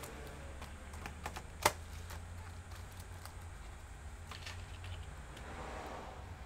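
Light plastic clicks and taps from laptop parts being handled, with one sharp click about a second and a half in, and a brief soft rubbing or sliding sound near the end, over a steady low hum.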